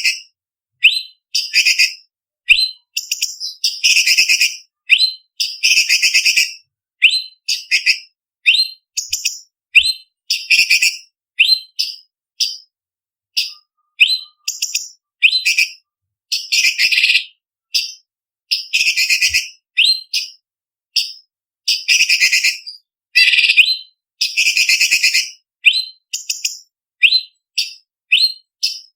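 Orange-bellied leafbird (cucak cungkok) singing: a rapid string of short, high whistled notes with brief gaps between them, broken every few seconds by longer, denser phrases.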